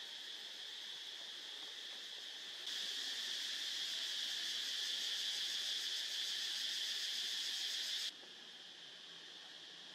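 Steady, high-pitched insect chorus, a dense fine trill; it steps up louder about three seconds in and drops back abruptly about eight seconds in.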